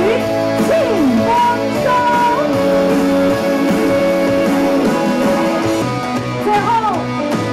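Music: a song with held instrumental notes and a singing voice gliding over them, at a steady level.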